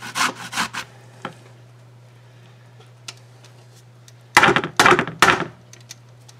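Metal box grater rasping through a zucchini in a few last quick strokes that stop within the first second. About four and a half seconds in, the grater is knocked three times against a wooden cutting board, the loudest sounds here.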